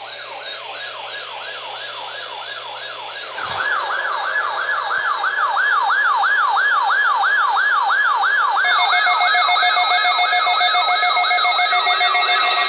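Electronic alert siren wailing up and down about three times a second, getting louder about three and a half seconds in. From about two-thirds of the way through, several steady held tones sound over it.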